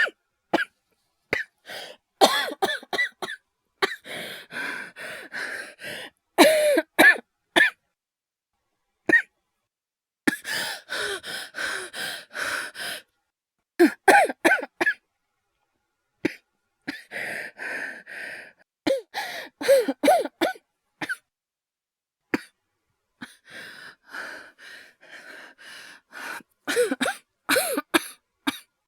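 A man's voice acting out repeated coughing fits: clusters of short, harsh coughs every few seconds, with hoarse, strained breaths between them, performed as a sick person coughing.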